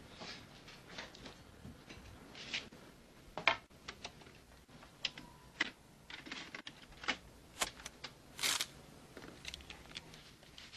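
Faint, irregular clicks, taps and short rustles of gear being handled, with a dozen or so separate ticks. The sharpest comes about three and a half seconds in, and a slightly longer rustle follows near eight and a half seconds.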